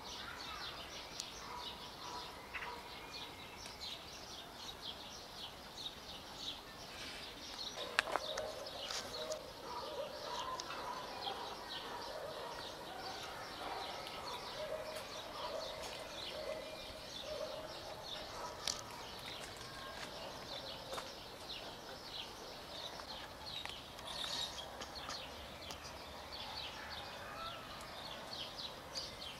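Small birds chirping steadily in the background, with lower drawn-out wavering calls through the middle of the stretch and a single sharp click about eight seconds in.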